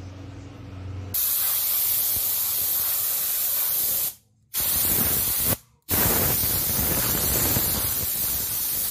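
Compressed-air spray gun hissing as it sprays adhesive onto neoprene, in three long bursts that start and stop abruptly, with short breaks about four and five and a half seconds in.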